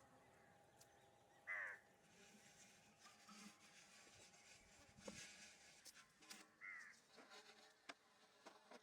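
A bird gives two short calls about five seconds apart, each sliding down in pitch, over faint outdoor background with a few light clicks.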